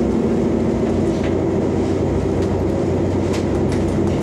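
Inside a 485-series electric train car as it starts to pull away from the platform: a steady low hum of the running train, with a few faint clicks from the wheels.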